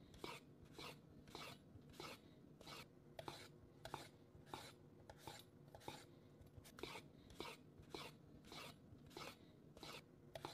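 Kitchen knife slicing through ripe mango flesh held in the hand, in a faint, even rhythm of about two strokes a second.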